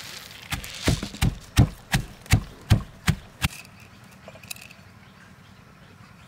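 Stone pestle pounding garlic cloves and black peppercorns in a stone mortar: about nine strikes at roughly three a second, stopping about three and a half seconds in.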